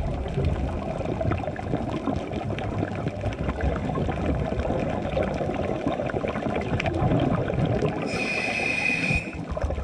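Scuba diver breathing through a regulator underwater: a long gurgling rumble of exhaled bubbles, then, near the end, a steady whistling tone about a second long as the diver breathes in. A faint fine crackle runs underneath.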